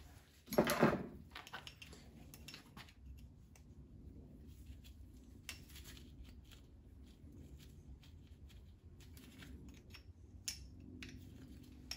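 Small metal clicks and light rattles of a socket wrench, socket and bolts being handled in gloved hands, with one louder scuffing handling noise near the start.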